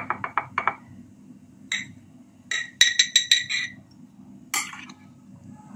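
Metal spoon and glass jar clinking as cooked green beans are spooned into the jar from a glass dish: a quick run of taps at the start, then scattered clicks and a cluster of ringing glass clinks midway.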